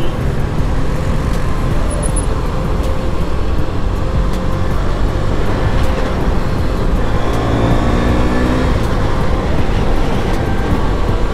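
KTM Duke 250's single-cylinder engine running steadily while riding at road speed, mixed with wind and road noise.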